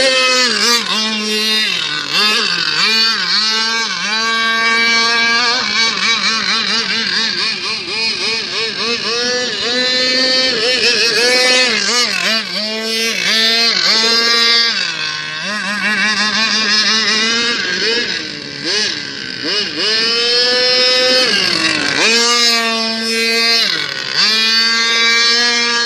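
40 cc two-stroke petrol engine of a radio-controlled speedboat running at high revs, a high buzzing whine whose pitch dips sharply and climbs back again many times.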